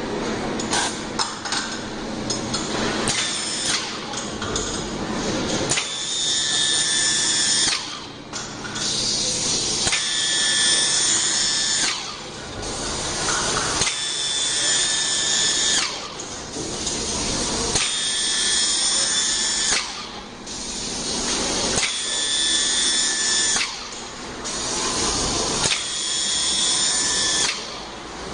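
Mixing head of a two-colour polyurethane shoe-sole pouring machine running with a high, drill-like whine. From about six seconds in it breaks off briefly and starts again about every four seconds.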